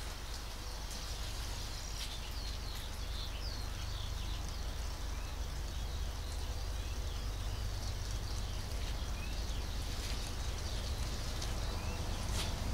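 Steady rain hiss with birds chirping now and then, over a low, even rumble of distant diesel locomotives approaching.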